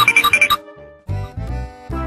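Cheerful children's background music: a quick run of tinkling, bell-like notes in the first half second, then a low beat under held tones.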